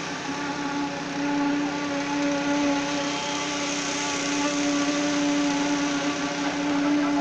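Engine of concrete-site machinery running steadily at one speed, a constant hum with a strong low tone.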